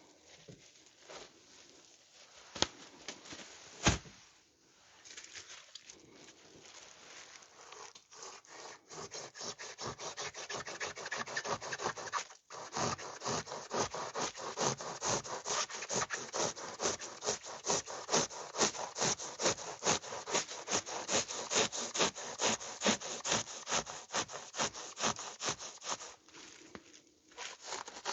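Motorcycle seat foam being worked by hand with rapid back-and-forth rasping strokes, several a second, steady from about a third of the way in. A couple of sharp knocks come before the strokes start.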